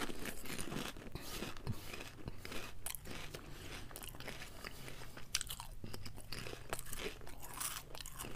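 Lux potato chips being chewed: a steady run of crisp, irregular crunches.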